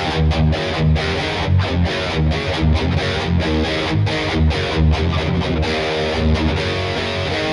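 Schecter C-1 Hellraiser electric guitar played through heavy distortion: a low, choppy riff of short notes broken by many brief stops.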